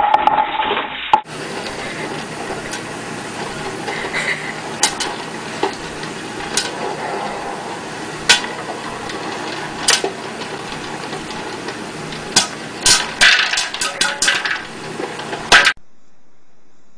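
Electric popcorn popper running with a steady hiss while kernels pop: single pops at first, coming thick and fast near the end, then the sound cuts off. It opens with a brief loud clatter.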